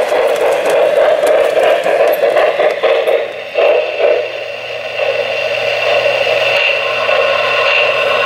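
O-gauge three-rail model trains running, a steady whirr and rattle of wheels and motors on the track. About four and a half seconds in a low steady hum joins it.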